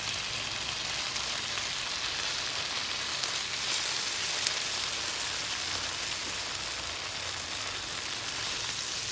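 Chicken pieces and onion sizzling steadily in a nonstick frying pan, freshly coated in oyster sauce, as a silicone spatula stirs them, with one short tick about four and a half seconds in.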